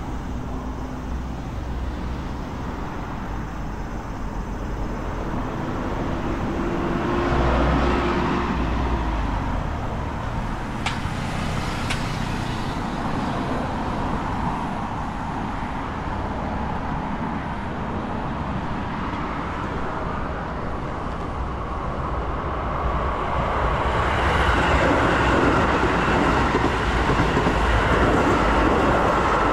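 Vehicles passing: a steady background of traffic noise that swells as something goes by about eight seconds in, then builds again for a longer pass near the end. Two short sharp clicks come about eleven and twelve seconds in.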